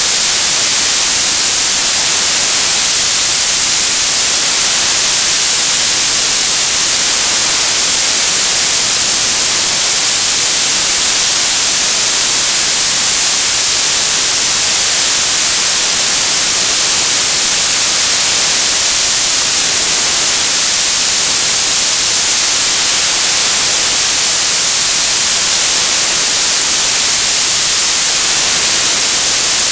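Television static: a loud, steady hiss of white noise, brightest in the treble and unchanging throughout.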